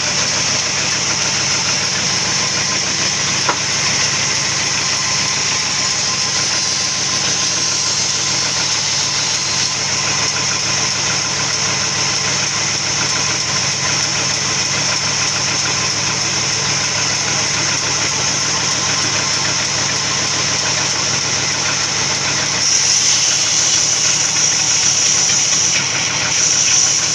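Sawmill machinery running steadily, a loud mechanical drone with a strong high hiss. It grows louder and harsher about 22 seconds in.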